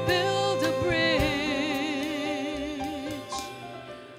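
A woman singing a long held note with a steady vibrato over a small band with upright bass, the music growing quieter near the end.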